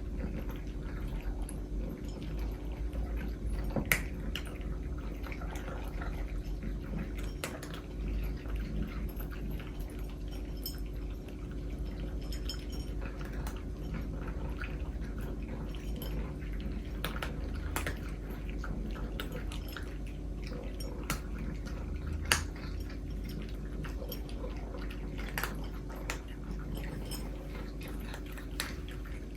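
Cats eating, with chewing and scattered sharp clicks. A steady low hum runs underneath.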